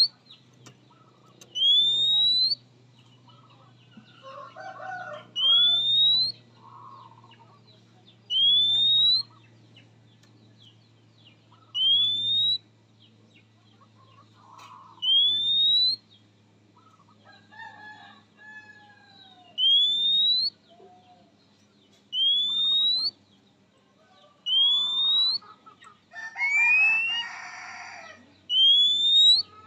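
Oriental magpie-robin (kacer) repeating one loud, rising whistle about every three seconds, each under a second long: its characteristic call to a rival.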